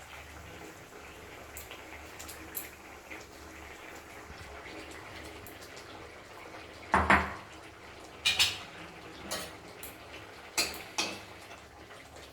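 A metal spoon or spatula clattering against a cooking pan about six times over the last five seconds, as fish pieces go into the boiling mustard gravy. Before that there is only a quiet, steady background.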